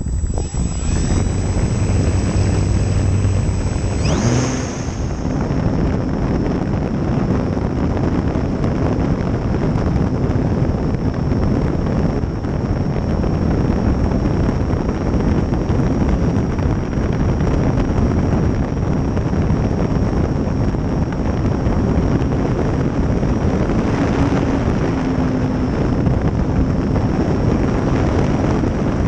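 On-board sound of the E-flite Valiant 1.3m RC plane's electric motor and propeller running under power, a steady high whine under heavy wind rush over the plane-mounted microphone. The whine's pitch changes about four seconds in.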